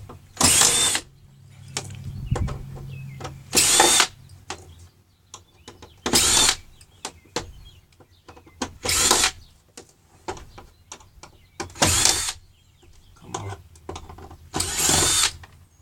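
Power drill with a screwdriver bit backing out screws: six short whirs about three seconds apart, each rising and falling in pitch, with small clicks and rattles of screws and plastic between them.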